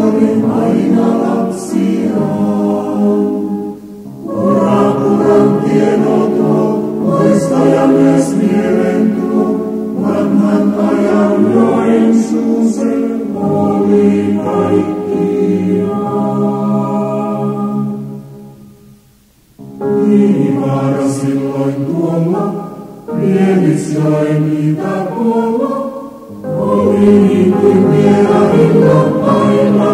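Vocal music: a song sung in phrases, breaking off briefly about nineteen seconds in.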